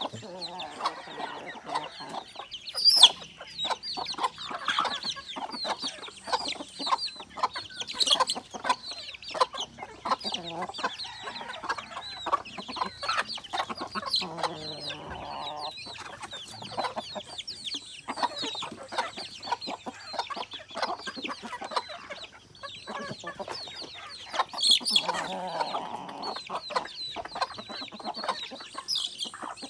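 A flock of native chickens clucking as they feed, with small chicks peeping high and fast throughout. Longer, lower calls come in the middle and again near the end, and one sharp, loud sound stands out about three seconds in.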